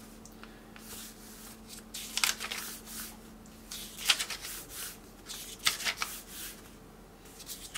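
Pages of a paper instruction manual being leafed through quickly: a run of short papery flicks and rustles, irregularly spaced.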